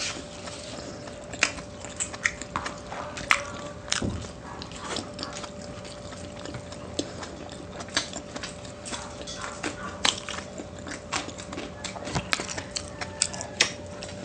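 Close-miked eating: chewing and biting into adobo and rice, with many irregular short wet clicks and smacks, over a faint steady hum.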